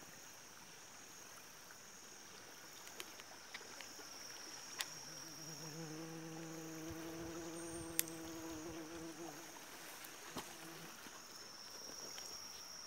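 Faint, steady high-pitched drone of insects buzzing, with a few small clicks. From about five seconds in to about nine and a half seconds, a faint low steady hum joins it.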